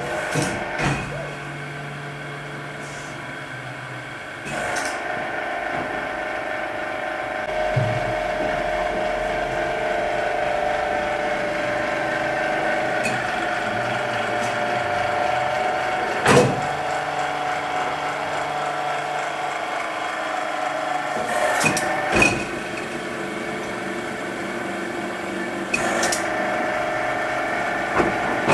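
Enerpac hydraulic pump running to drive a workshop press, a steady motor hum whose note shifts and grows louder a few seconds in, with a few sharp clicks from the pump's controls.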